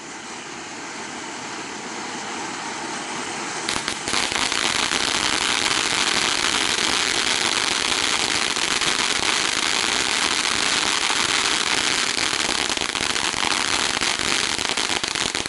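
Pyrotrade PGE406-2 Mega-Fan fountain battery spraying sparks with a steady rushing hiss that slowly grows. About four seconds in it jumps sharply louder into a denser stage full of fast crackling, and holds there.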